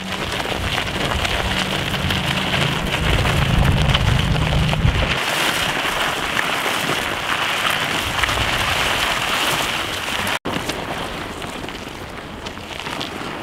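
A steady, loud rain-like hiss, with a low droning rumble under it that stops about five seconds in. The sound cuts out briefly about ten seconds in.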